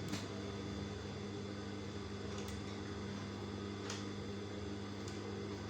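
Sewing machine's electric motor humming steadily, with a few faint ticks.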